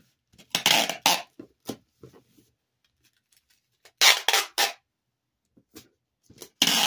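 Short bursts of crinkling and rustling as tape and clear plastic wrapping are handled and pressed onto a cardboard shipping box. They come in three clusters: about a second in, at about four seconds, and near the end.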